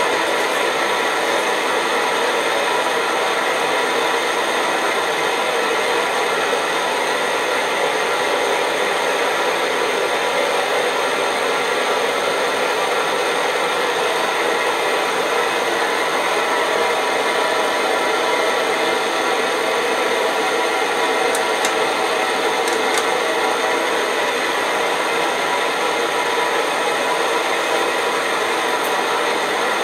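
Optimus 111 paraffin pressure stove's roarer burner running steadily at full flame under a kettle, an even rushing noise. A few faint ticks about two-thirds of the way through.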